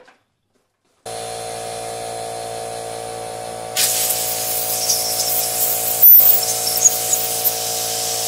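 After a second of silence, a steady hum starts. About four seconds in, a spray hisses steadily as the dirt-caked Kohler K-series engine block is blasted clean around its points-pushrod holes, with a louder burst about six seconds in.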